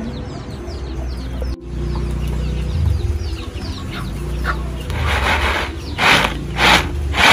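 Chicks or chickens peeping over and over in short falling chirps. From about five seconds in, four loud rustling swishes as shelled lamtoro seeds are tossed on a woven bamboo winnowing tray.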